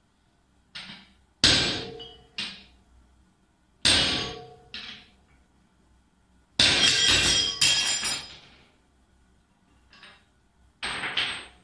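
Hammer blows on soft aluminium plates set over a bearing, driving the bearing down onto a Cazeneuve HB 575 lathe spindle. Separate sharp strikes each ring briefly, with a longer run of blows about two-thirds of the way through.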